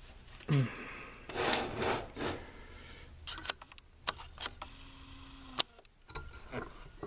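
Handling noise from a camera and its stand being moved and adjusted: rubbing and scraping in the first two seconds, then a string of sharp clicks and knocks.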